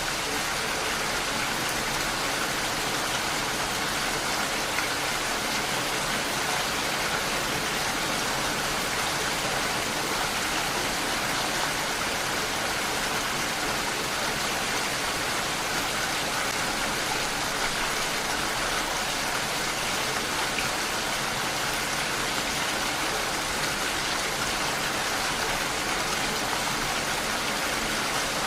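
Steady rain falling, an even hiss of many raindrops.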